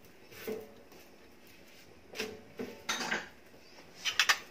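Kitchenware clinking and knocking against a metal cooking pot as spices are tipped in from a small bowl: a few separate knocks, then a quick run of sharp clinks near the end.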